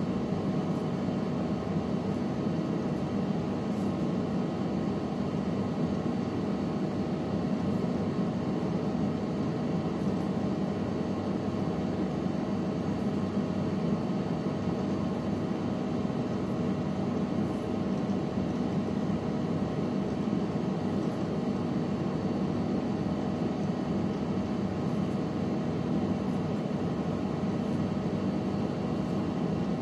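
Steady low machine hum of a running room appliance, even and unchanging throughout, with a few faint light clicks over it.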